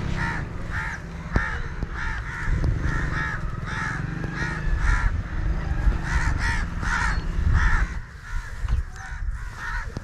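Crows cawing over and over, several calls overlapping at about two a second, thinning out near the end.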